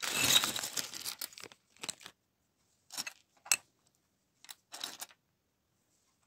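Plastic LEGO parts bag crinkling as small plastic bricks clatter out of it onto a cutting mat for the first second and a half. This is followed by a handful of short clicks and rustles as loose pieces are moved about.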